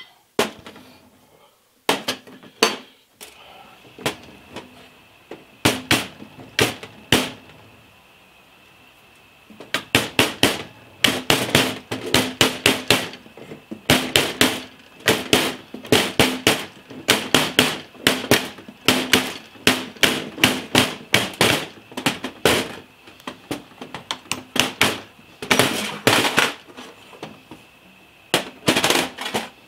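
Hammer tapping on the steel body of a Hardinge lathe collet closer in quick runs of several blows a second, with a short pause a few seconds in; the struck metal rings. The blows are knocking the closer's parts loose to take it apart.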